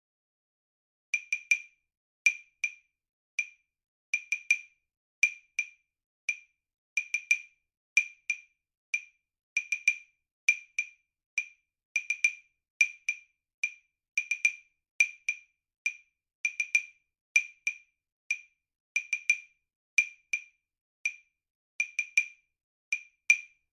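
Dry, high-pitched percussion clicks playing a repeating syncopated rhythm of single strokes and quick clusters, starting about a second in: the percussion accompaniment of a rhythm exercise.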